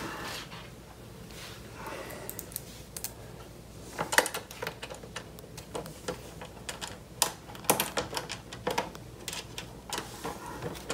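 Irregular light clicks and taps as a screw is turned by hand into the threaded mounting hole on the back of a computer monitor, sparse at first and coming thick and fast from about four seconds in.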